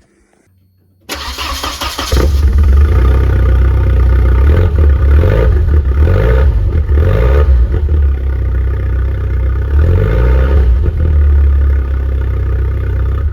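Volvo 940 turbo's 2.3-litre turbocharged four-cylinder engine starting about a second in, then running with no exhaust system past the catalytic converter and revved up and back down three times. Loud and throaty.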